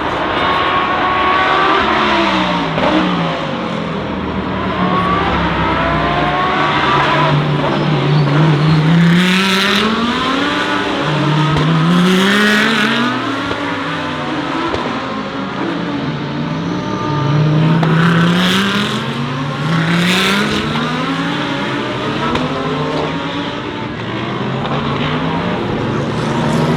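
GT3 race cars on the formation lap, one after another accelerating hard and passing, each engine's pitch climbing in short rising sweeps through the gears, with several louder passes along the way.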